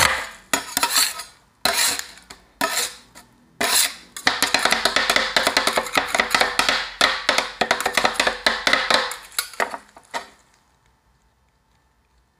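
Steel ice-cream-roll spatulas scraping and chopping a fruit ice cream mixture on a frozen stainless-steel cold pan: sharp metallic strikes, broken by pauses at first, then a fast continuous run of chopping that stops about ten seconds in.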